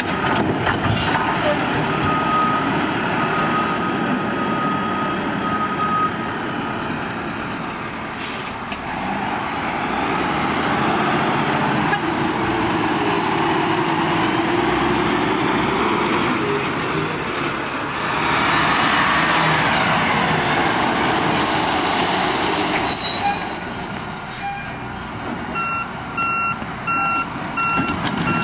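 Garbage truck working: engine running, its pitch rising and falling in the middle, with reversing beeps for the first few seconds and again near the end, and a sharp air-brake hiss a few seconds before the end.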